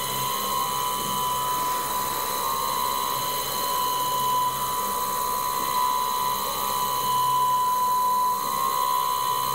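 Stepper motor of a CNC router's Z axis driving the cutter slowly down toward the tool-setting block during automatic tool setting: a steady high-pitched motor whine.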